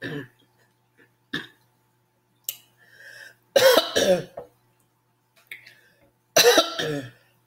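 A woman coughing and clearing her throat in two loud fits, one about three and a half seconds in and one near the end, as food catches in her throat while she eats. A few faint clicks come before the fits.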